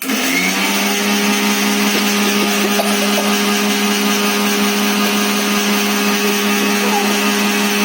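Electric grinder machine switched on: its motor spins up in about half a second, then runs at a steady speed with an even hum.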